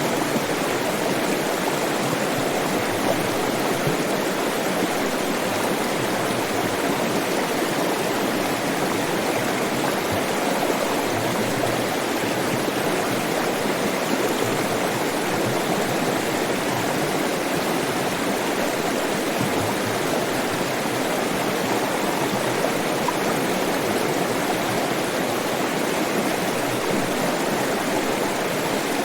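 Flowing stream water rushing steadily over rocks, an even, unbroken sound.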